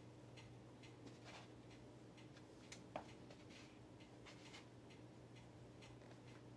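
Faint crackling of crumbly pineapple cake pastry being ground under high-heeled shoes on a tiled floor: soft, scattered ticks with one sharper click about three seconds in, over a low steady hum.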